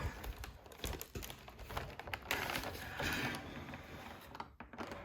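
Cardboard advent-calendar box being handled and torn open: scattered taps and rustles, with a longer rasp of tearing or sliding cardboard a couple of seconds in.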